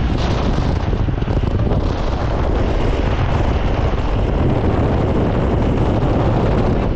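Heavy wind buffeting the microphone over the low rumble of a moving vehicle.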